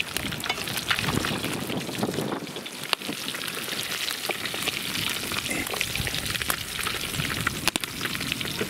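Fish deep-frying in hot oil in a cast-iron kazan: a steady sizzle and crackle as the fish boils from the inside, with a couple of sharper clicks.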